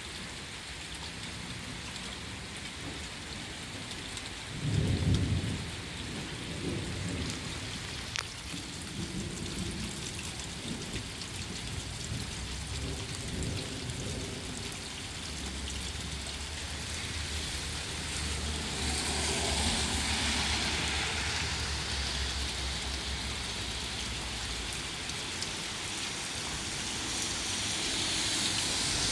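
Steady rain falling in a thunderstorm, with a loud clap of thunder about five seconds in and low rolling thunder after it. The rain's hiss grows louder about two-thirds of the way through.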